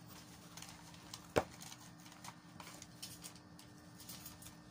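Faint clicks and taps of a motherboard box and its packaging being handled and opened, with one sharper click about a second and a half in, over a faint steady hum.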